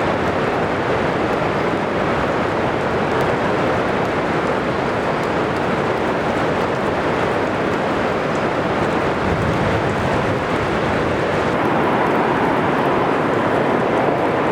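Thunderstorm noise: a steady, dense rush of heavy rain and wind.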